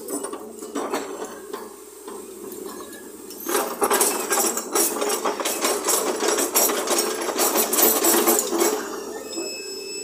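JCB tracked excavator digging its bucket into stone rubble: rocks clatter and grind as loose stone is scooped, starting about three and a half seconds in and easing off near the end, over the steady running of the excavator's engine.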